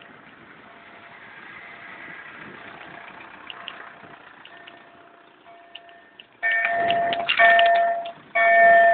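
Faint background noise with a thin steady tone, then, about six seconds in, a loud repeating alarm-like tone begins, sounding in even pulses just under a second long.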